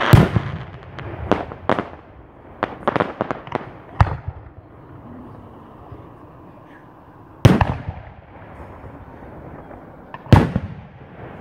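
4-inch (100 mm) aerial firework shells booming: a loud bang right at the start, a quick run of smaller sharp cracks over the next few seconds, another bang about 4 seconds in, and two heavy booms about 7½ and 10½ seconds in.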